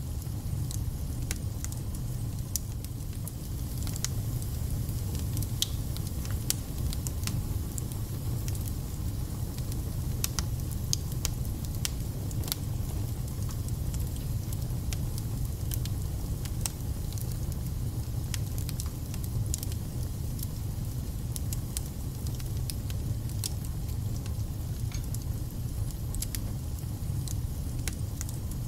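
Wood fire burning in a fireplace: a steady low rumble with frequent irregular crackles, pops and spits.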